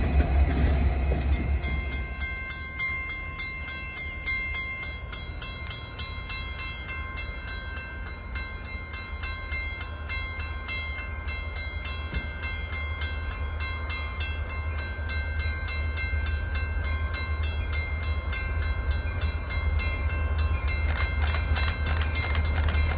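Diesel locomotives running with a deep steady rumble and a thin steady whine above it, growing gradually louder toward the end. A louder train noise drops away about a second and a half in.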